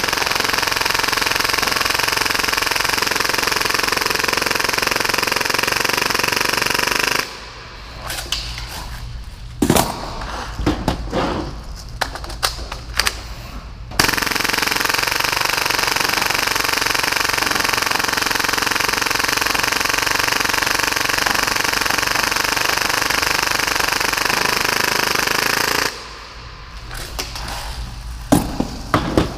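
Full-auto Tokyo Marui Hi-Capa airsoft pistol firing at about 30 rounds per second, its shots running together into one steady rattling sound, in two long bursts of about seven and twelve seconds. Between and after the bursts there are scattered clicks and knocks.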